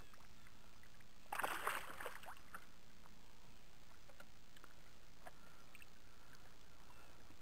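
Hooked largemouth bass splashing at the surface beside a kayak: one short burst of splashing about a second and a half in, then only faint water sounds and a few light ticks.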